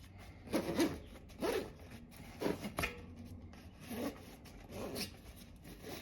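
Tire lever scraping and rubbing as it is run under a bicycle tire's bead along the rim, in a series of short strokes, roughly one a second.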